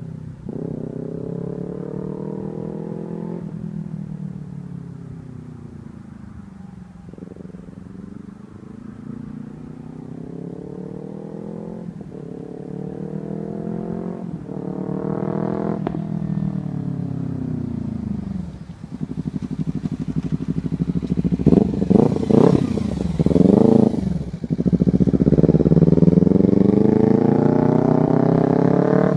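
Kawasaki Ninja 300's parallel-twin engine through a Hotbodies MGP Growler slip-on exhaust, accelerating through the gears: the pitch climbs, then drops at each shift, several times over. It gets much louder about two-thirds through, with a few quick sharp revs and then a long loud pull near the end.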